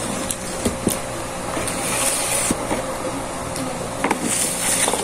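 Rustling and a few light clicks as food packaging is handled close to the microphone, over the steady hum of an electric fan.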